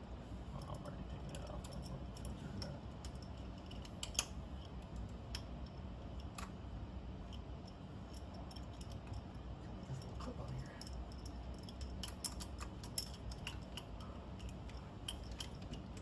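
Scattered light metallic clicks and ticks of hand tools and fittings as lines and linkages are worked off a carburetor, over a low steady hum. The clicks come singly and in a small cluster near the end.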